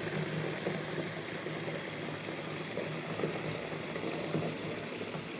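Foamy bathwater in a tub: a steady watery hiss with no breaks.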